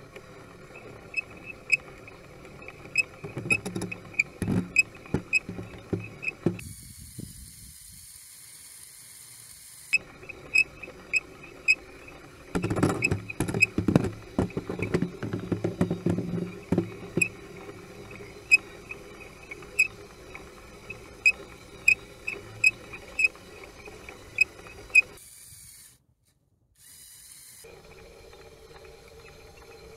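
Steady mechanical hum with regular light ticks, about two to three a second. Midway there is a few seconds of louder knocking and scraping.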